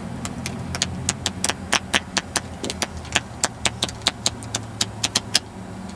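Playing cards flicked off the edge of a deck one after another, a sharp click each, about four a second, over a low steady hum.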